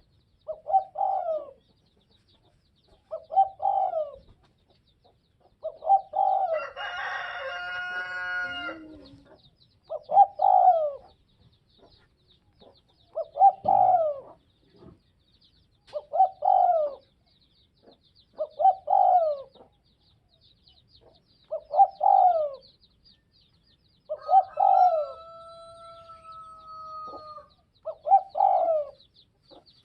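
Spotted dove cooing its short phrase over and over, about once every three seconds. Another bird gives a longer call about seven seconds in and a held two-tone call near the end, over a faint high insect-like chirring.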